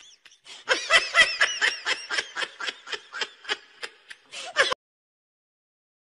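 A person laughing in quick repeated bursts of giggling, about four or five a second, that cut off abruptly near the end.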